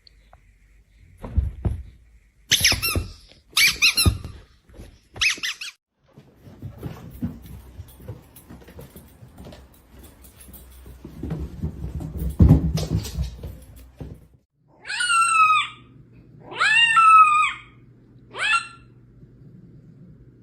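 A series of short high-pitched squeaks, then rustling and bumping, then three longer squeals that rise and fall in pitch near the end.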